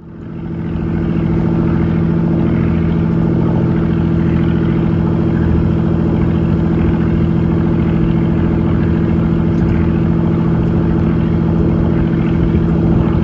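Boat engine running at a steady speed with an even, deep hum. The sound swells up from silence in the first second, then holds unchanged.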